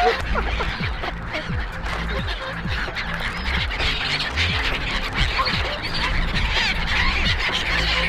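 A large crowd of whooper swans and gulls calling over one another while they jostle for food: a dense, unbroken din of swan honks and gull cries.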